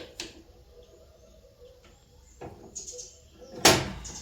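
Setting up at a drill press to drill a 4 mm pivot hole in Damascus steel: a faint steady hum, a few light knocks, a brief high squeak near three seconds in, and a loud sharp knock about three and a half seconds in.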